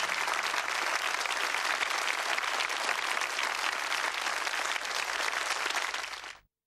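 Studio audience applauding, then quickly fading out near the end.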